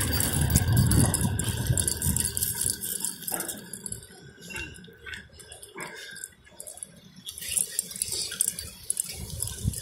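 Bicycle ride on a concrete street: wind rumbling on the microphone for the first couple of seconds, then quieter, with scattered light metallic clinks and rattles.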